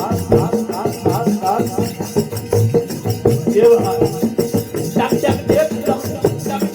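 Instrumental passage of a live Gujarati devotional bhajan: a melody line over a steady, fast rhythm with jingling manjira hand cymbals.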